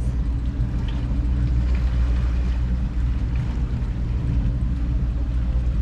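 Motorboat engine running steadily while trolling, a low even hum.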